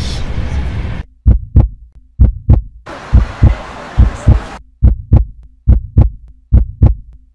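Heartbeat sound effect: paired low thumps (lub-dub) repeating a little more than once a second, starting about a second in over a faint steady hum. Before it, about a second of noisy background.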